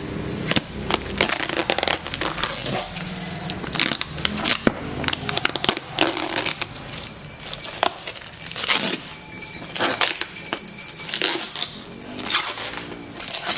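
Clear plastic packing tape being picked at, peeled and torn off a cardboard box, crackling and crinkling in irregular bursts.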